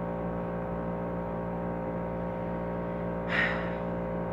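Steady electrical hum with many overtones, unchanging, and a brief hiss about three seconds in.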